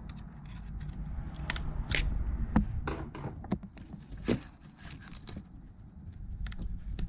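Scattered sharp clicks and knocks of plastic electrical connectors and a braided wiring harness being pried with a screwdriver and worked loose by hand in an engine bay, over a low steady hum.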